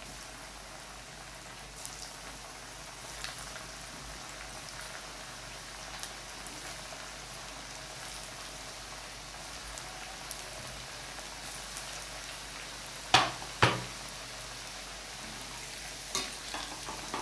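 Battered taro root slices deep-frying in hot oil in a kadai: a steady sizzle with small crackles. Late on come two sharp knocks, about half a second apart.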